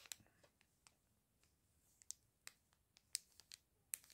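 A plastic zip bag of diamond-painting resin drills being handled: a few faint, scattered crinkles and clicks against near silence.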